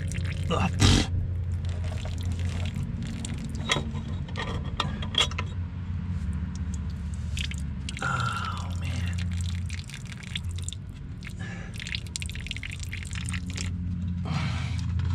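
Milky, water-contaminated transmission oil trickling and dripping from the strainer opening of a John Deere 450B dozer's transmission as the cover plate is worked loose, with scattered metal clicks and scrapes of the wrench and plate. A steady low hum lies under it.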